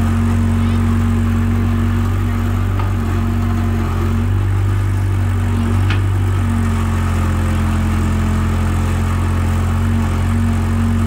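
Caterpillar tracked excavator's diesel engine running steadily, with a constant low hum.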